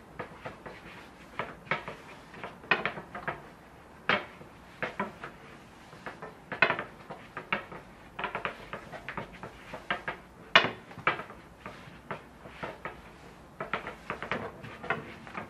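Long, thin wooden rolling pins rolling and knocking on a floured wooden board as sheets of baklava dough are rolled out: irregular wooden knocks and clacks, one or two a second, the loudest about ten seconds in.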